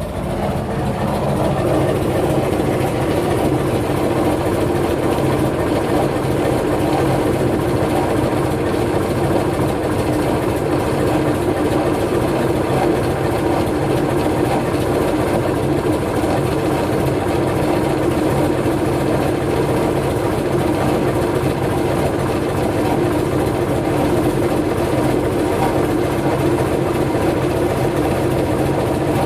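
Engine running steadily, the noise the uploader flags as suspicious. It swells about a second in and holds even throughout.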